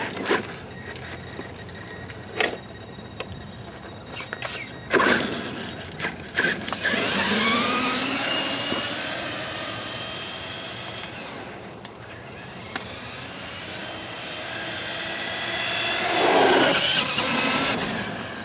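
Traxxas E-Maxx electric RC monster truck driving, its electric motors and gears whining and rising in pitch as it speeds up, louder again near the end. A few sharp knocks come in the first seconds.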